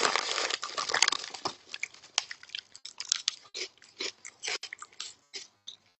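A hand rummages in a crinkly chip bag for about the first second and a half, then potato chips are crunched and chewed in irregular, crackly bites that fade off near the end.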